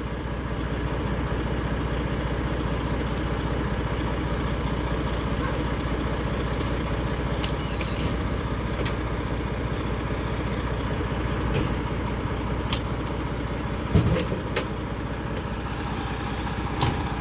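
Engine of a parked fire truck idling, a steady low hum, with a few light clicks and taps now and then.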